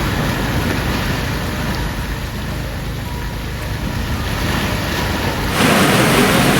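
Rushing hot water of a volcanic stream: a steady hiss with a low rumble underneath. About five and a half seconds in it switches abruptly to a louder, brighter rush of water.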